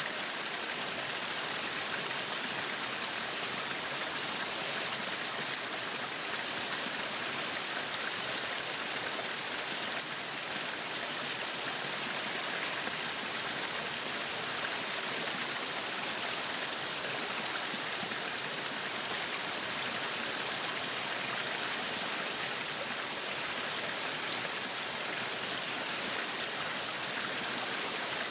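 Meat sizzling on a yakiniku grill: a steady, even hiss with fine crackling that continues without a break.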